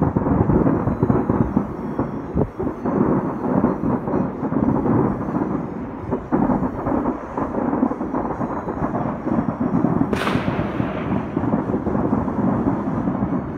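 Many fireworks exploding over a city, their overlapping bangs and crackles merging into a continuous rumble, with one sharper crack about ten seconds in.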